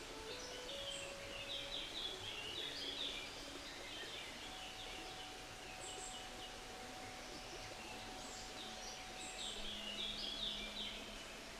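Songbirds singing over the steady rush of a flowing brook, with a run of song phrases a couple of seconds in and another near the end.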